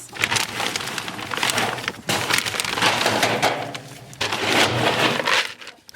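Dense crackling and crunching noise, many quick clicks packed together, swelling and easing in three waves.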